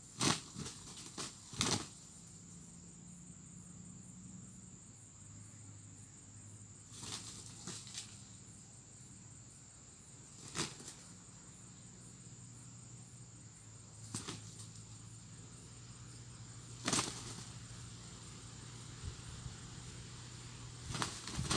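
A rooster's wings flapping and rustling in dry palm litter, in short flurries every few seconds, about seven in all, over a steady high-pitched whine.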